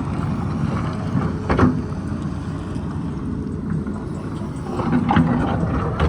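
Tata Hitachi excavator's diesel engine running steadily under load, with two short scraping knocks, about a second and a half in and again about five seconds in, typical of the bucket working rock and soil.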